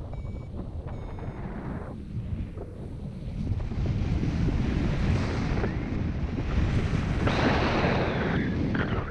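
Wind rushing over the microphone during a paraglider flight, growing louder about halfway through and loudest near the end as airspeed rises. In the first second a few short electronic beeps sound, typical of a paragliding variometer signalling lift.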